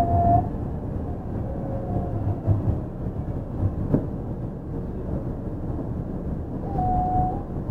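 Onboard running noise of a Yui Rail 1000-series monorail car, a steady low rumble as it travels on its rubber tyres along the guideway. A faint steady whine, likely from its Hitachi IGBT inverter, comes in at the start and again near the end, and there is one sharp click about halfway through.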